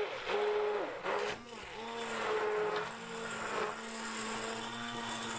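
Immersion (stick) blender motor whirring as it churns a bowl of yogurt and gram-flour batter: switched on and off in a few short pulses, its pitch rising and falling with each, then held running steadily from about two seconds in.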